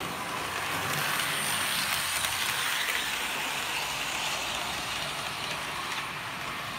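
Electric model train running on the layout's track: a steady whirring rush of motor and wheels on rails, a little louder in the first half and easing slightly near the end.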